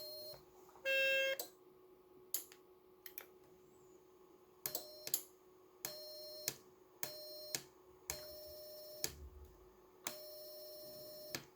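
(tr)uSDX QRP transceiver's CW sidetone: a keyed beep near 600 Hz sounding in separate dits and dahs of differing length, each starting and ending with a click, as the rig transmits CW into a dummy load. A louder, slightly lower beep sounds about a second in, and the last tone near the end is the longest.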